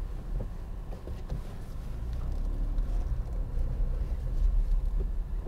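Volkswagen up!'s 1.0-litre three-cylinder petrol engine running at low revs, heard from inside the cabin as a steady low rumble while the car creeps along at parking speed.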